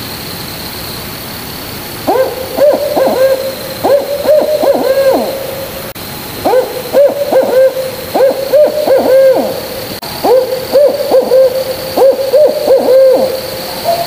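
An owl hooting in three bouts of quick, wavering hoots, each bout about three seconds long with short pauses between, over a faint steady high whine.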